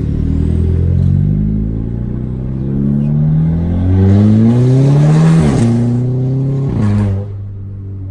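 Audi A3's turbocharged TFSI four-cylinder, with a downpipe and 2.5-inch straight-pipe exhaust, accelerating hard with its pitch climbing. Quick upshifts break the climb about halfway through and again near the end, then the note settles lower and quieter as the throttle eases.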